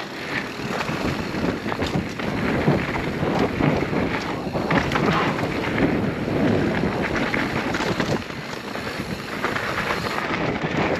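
Mountain bike riding down a dirt trail: tyres rolling and the bike rattling, with many small knocks, under wind noise on the microphone.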